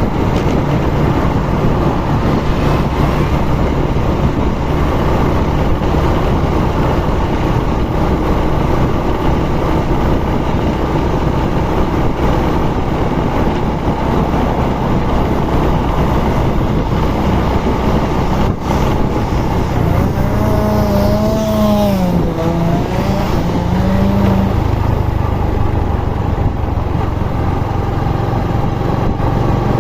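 A vehicle on the move: its engine runs steadily under continuous road and wind noise. About twenty seconds in, a wavering pitched sound rises and falls for a few seconds.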